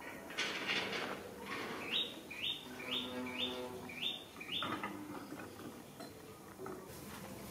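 A run of about six short high chirps, about two a second, each dropping in pitch, from a small animal. There is rustling around them.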